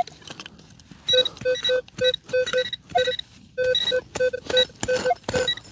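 Metal detector beeping in short, irregular pulses, about three to four a second, starting about a second in, with a few knocks in between. The beeps signal a small metal target close by.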